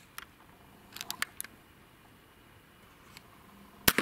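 A few light mechanical clicks, then a single sharp report from a sub-12 ft/lb pre-charged air rifle firing near the end, with a short ringing tail.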